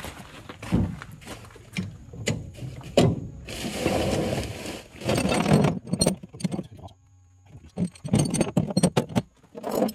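Steel tie-down chains clinking and rattling against metal in irregular sharp clanks, with two longer scraping stretches in the middle, a short lull, and then another run of clanks near the end.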